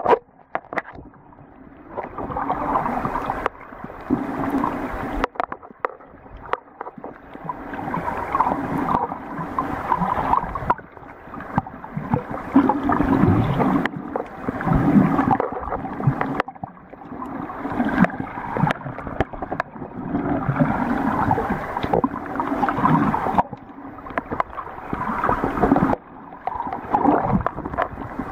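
Muffled water sloshing and gurgling, heard through a camera held just under the surface. It swells and fades every few seconds.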